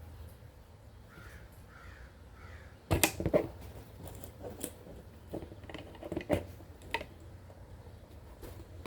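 Three faint, short bird calls, like a crow cawing, early on. From about three seconds in come a series of sharp clicks and knocks, the loudest near the start, as tools and small parts are handled during repair work.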